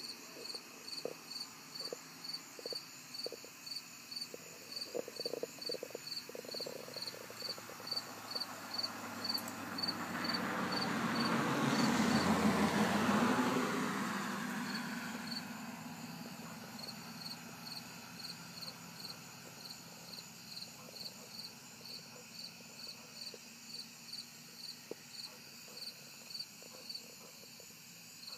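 A night insect chirping steadily, about two short high chirps a second. Near the middle, a rushing noise swells and fades over about six seconds and briefly covers the chirps.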